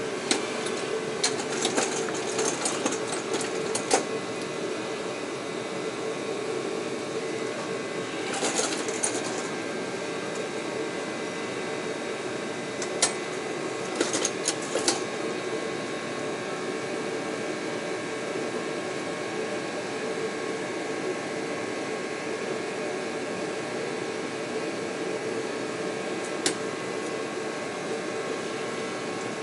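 Hand tools and parts clinking against metal on a truck's underside: scattered sharp clicks and clanks, several in the first few seconds, more about a third and halfway through, and one near the end, over a steady machine hum with a few held tones.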